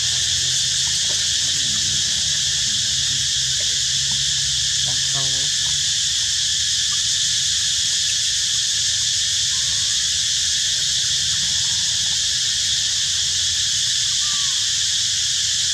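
Dense insect chorus, a loud steady high-pitched buzz that never lets up, with a faint low hum beneath it and a brief faint call about five seconds in.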